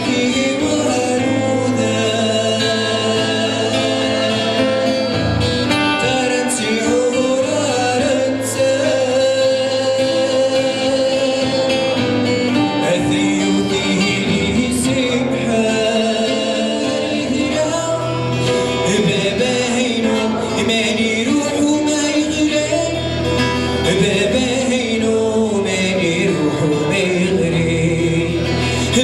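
A man singing a song while strumming an acoustic guitar, his voice carrying the melody throughout.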